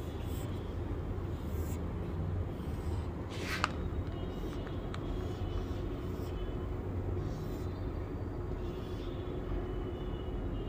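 A marker drawing lines on a white board, a few brief faint scratchy strokes, over a steady low background rumble.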